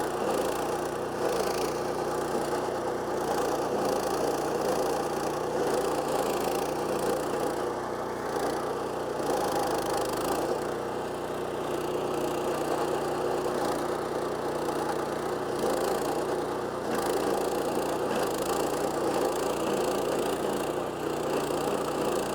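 Stump grinder running on its 14 HP Kohler Command Pro single-cylinder engine at about 3,600 RPM, with the steady crackle of its carbide-toothed cutting wheel chewing wood. The sound swells and eases a little as the wheel bites.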